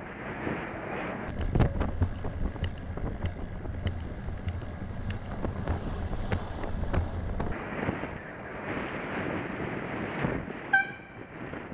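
Wind noise on a bicycle-mounted camera's microphone while a lorry passes close alongside, its low engine and tyre rumble joined by sharp clicks for about six seconds. A short, sharp pitched ping sounds near the end.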